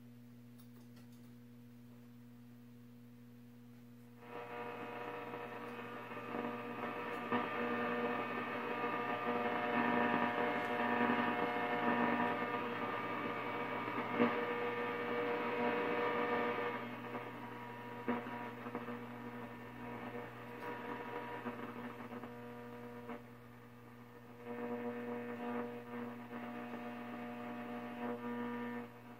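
A 1934 RCA 128 tube radio's speaker humming steadily while it is tuned across the shortwave band without bringing in a station. About four seconds in, a louder buzzing tone rises over the hum and holds until about seventeen seconds, then comes back more faintly near the end.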